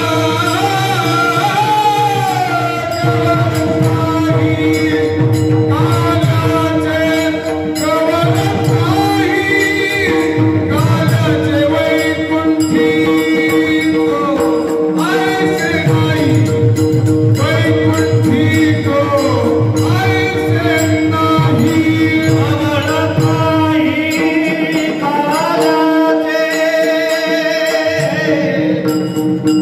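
Warkari bhajan: male voices sing a kirtan melody (chal) over a steady drone, with brass hand cymbals (tal) and the low strokes of a mridang drum keeping the beat.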